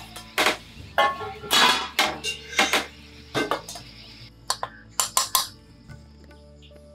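Metal plates and a small metal bowl clinking and knocking together as they are picked up and set down, a string of sharp clinks with short ringing and a quick cluster of several a little before the end.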